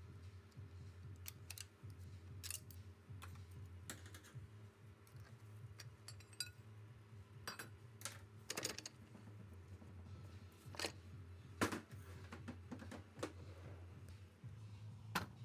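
Irregular small metallic clicks and taps of a hand tool and loose steel parts inside a 4L60E automatic transmission case, as a retaining ring is worked loose around the clutch pack. A low steady hum runs underneath.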